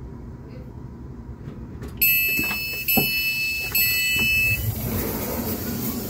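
Three long, high electronic beeps, each under a second and one right after another, over a low rumble, followed by a rushing hiss of air.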